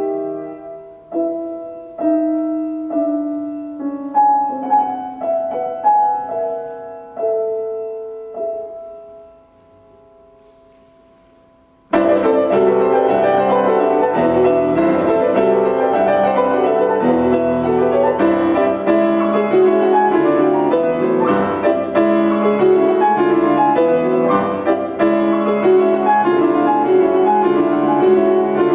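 Solo concert grand piano playing classical music: spaced single notes and chords that ring and die away, fading almost to nothing, then about twelve seconds in a sudden loud outburst of dense, fast playing that carries on.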